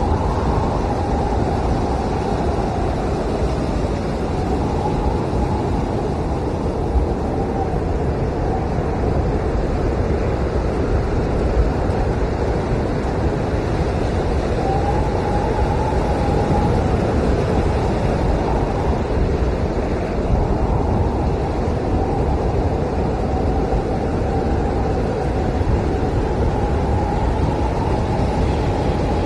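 Howling blizzard wind: a steady rush of wind with a faint whistle that slowly rises and falls in pitch.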